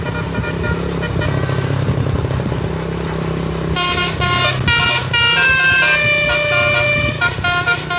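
Tour bus engine running with a low hum, then about halfway through a telolet basuri musical air horn starts playing a loud tune of shifting notes with short breaks between phrases.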